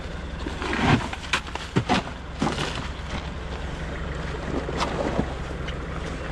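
Motorized bangka's engine running steadily while under way. Several short knocks or splashes come in the first couple of seconds.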